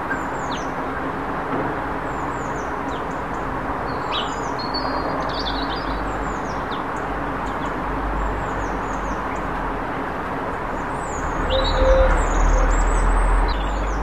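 Small garden birds chirping: short, high, down-slurred notes scattered throughout. Under them runs a steady background rumble, and a deeper rumble swells louder in the second half, loudest near the end.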